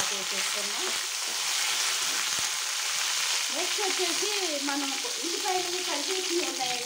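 Tempering seeds, curry leaves and green chilli pieces frying in hot oil in a stainless steel pan, a steady sizzle.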